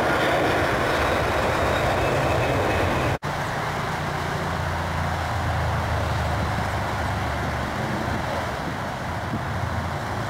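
Boeing 747's four turbofan engines at takeoff thrust: a loud, steady jet noise as the airliner rolls past, then, after a brief break in the sound about three seconds in, a deeper rumble as it climbs away.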